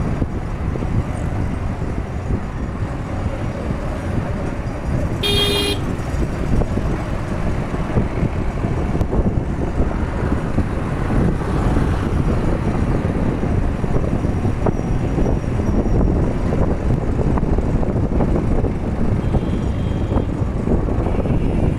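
Steady road traffic noise heard while moving through city traffic, with a short vehicle horn toot about five seconds in and fainter horn beeps near the end.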